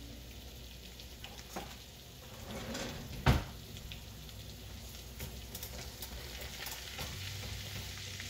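Butter and garlic sizzling gently in a skillet as the butter melts, with small crackles throughout. A single sharp knock sounds a little over three seconds in, and a spatula stirs through the pan near the end.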